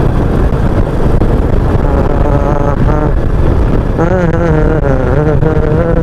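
Royal Enfield Meteor 350's single-cylinder engine running steadily at cruising speed under a heavy rush of wind on the microphone. A man's voice sings a few notes about two seconds in and again from about four seconds in.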